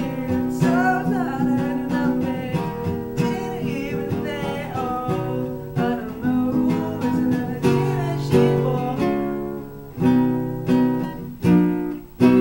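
Man singing while strumming a nylon-string classical guitar. Near the end the singing drops away and a few sharp strums stand out.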